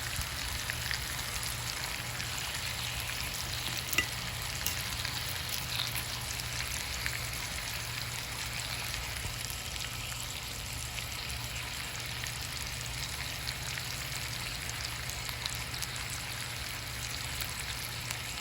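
Chicken sizzling and crackling steadily as it fries in a pan, with one sharp knock about four seconds in.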